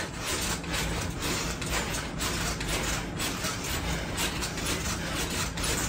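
Mini trampoline (rebounder) creaking and thudding in a steady rhythm as someone keeps jumping on it.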